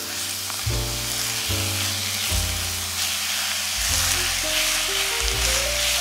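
Raw pork mince sizzling in a hot frying pan as a spatula presses and breaks it up, with a steady hiss throughout. Background music with changing chords and bass plays underneath.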